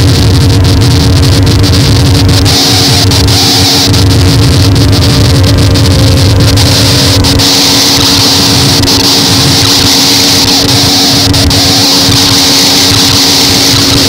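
Harsh noise wall: a dense, very loud, unchanging mass of distorted electronic noise from a digital synth, with steady humming tones under a hissing top and constant crackle. The deep rumble beneath it thins out about halfway through.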